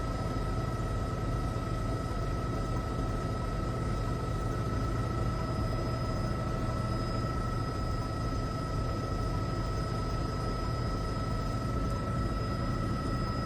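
Steady low rumble and hiss with a constant high-pitched tone running through it, unchanging, between radio transmissions.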